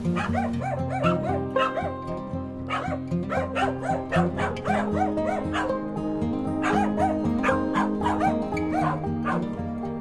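Two dogs barking and yipping over and over at an approaching stranger, over steady background music.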